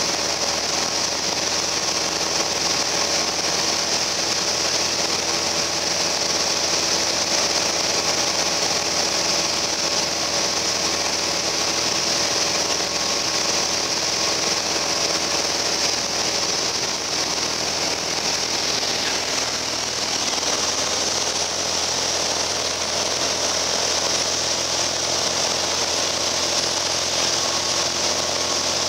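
Cabin noise of a Piper Cherokee Arrow light aircraft in flight: the single piston engine and propeller drone steadily under an even rush of air.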